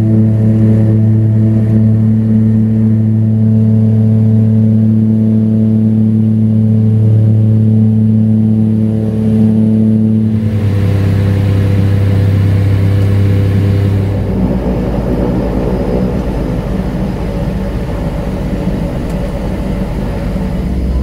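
Turboprop engine and propeller of a small twin-turboprop plane (Embraer Bandeirante), heard from the cabin beside the wing: a steady low, pitched drone. It shifts about halfway, then about two-thirds through turns to a rougher rumble with rushing noise as the plane rolls along an unpaved airstrip.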